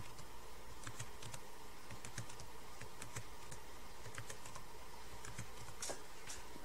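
Keystrokes on a computer keyboard: a run of short clicks at irregular spacing, often two close together, over a steady low hum. The keys answer repeated PowerShell script security prompts, typing R for 'Run once' and then Enter.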